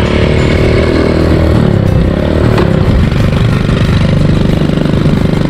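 ATV engine running under way, its pitch rising and falling with the throttle, then holding steadier.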